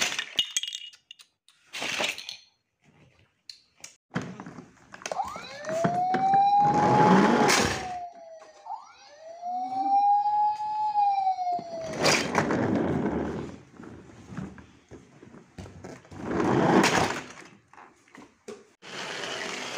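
Toy fire truck's electronic siren wailing in two slow rising-and-falling sweeps, each about three seconds long. Several loud, noisy bursts about a second long come before, during and after it.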